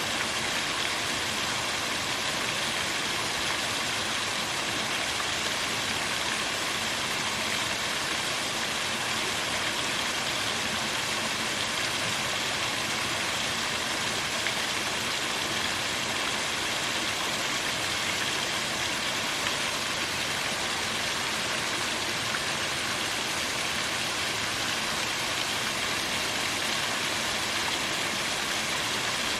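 Small waterfall: water pouring and splashing over rocks in a steady, even rush.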